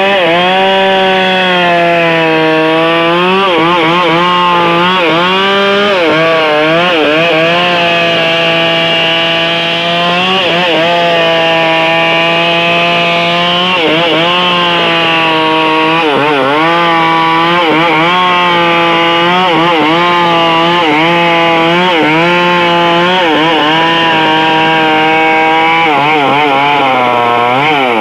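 Chainsaw engine running at high revs under load. Its pitch sags and recovers every one to two seconds as the chain bites into the wood, and it falls away steeply at the very end.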